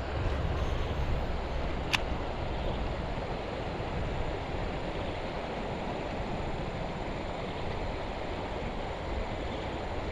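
Steady outdoor rushing noise, with a single sharp click about two seconds in.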